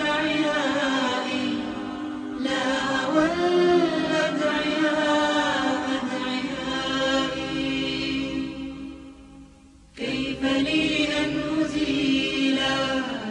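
Chanted vocal music of an Islamic nasheed, voices holding long, gliding notes; the singing fades almost away and starts again about ten seconds in.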